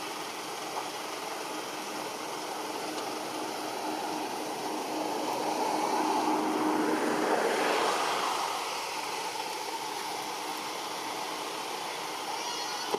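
Outdoor background noise with a steady hum, swelling and fading as a motor vehicle passes by over a few seconds midway.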